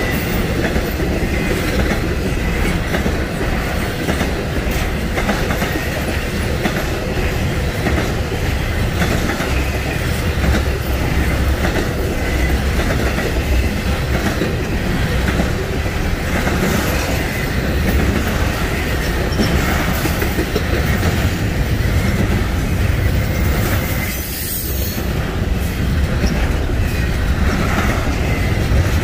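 Freight train cars rolling steadily past, wheels clattering over the rails, with a brief high-pitched wheel squeal near the end.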